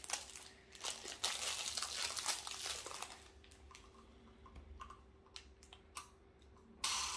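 Crinkling plastic packaging as a small fidget toy is unwrapped and handled for the first few seconds, followed by scattered small clicks and taps and another short rustle near the end.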